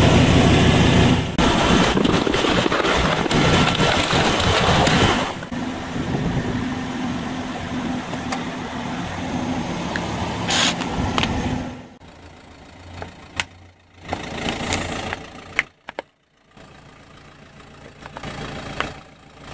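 Car engine running as the tyre rolls slowly over plastic bottles, loudest in the first five seconds. There is a sharp snap a little past ten seconds in, and scattered cracks and ticks of plastic giving way in the last several seconds.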